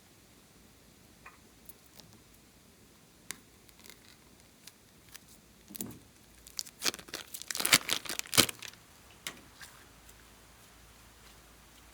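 Scattered small clicks, then a burst of crackling and crinkling about six seconds in that lasts for about three seconds, from hands handling slime-making materials.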